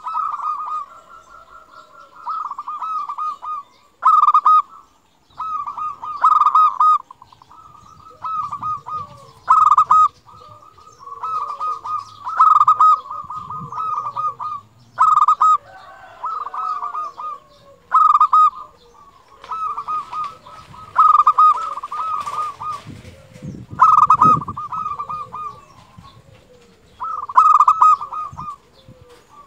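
Zebra dove (perkutut) singing: repeated phrases of quick trilled coos, one every two to three seconds or so, each starting sharply and loud.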